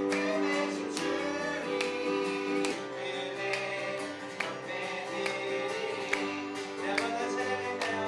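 A group of children singing a Korean praise song together, with instrumental accompaniment.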